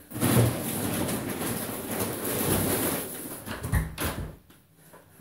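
Plastic shopping bags rustling as groceries are handled for about three seconds, then a single heavy thud near the end as a self-closing front door shuts.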